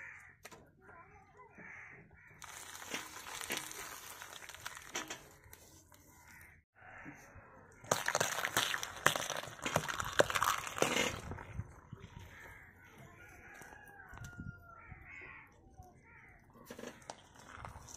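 Biscuit packets crinkling and popping as a tractor tyre rolls over them, then, loudest, a rapid run of cracks lasting about three seconds as a row of raw eggs is crushed under the tyre, shells breaking and yolk squelching. Birds call faintly afterwards.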